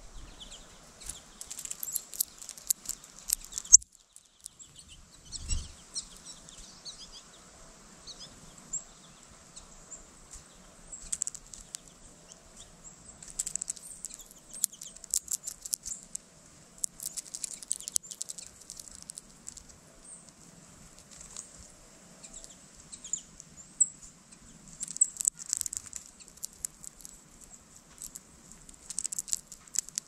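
Female northern cardinal at a platform feeder picking through and cracking seeds, making clusters of crisp clicks and crackles every second or two. There is a soft thump about five and a half seconds in.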